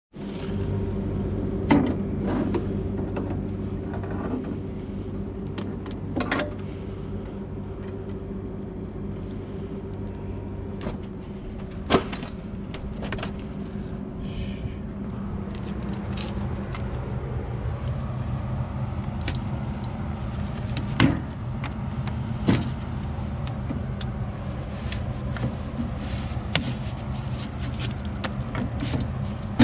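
A motor running with a steady low hum, with scattered knocks and clicks.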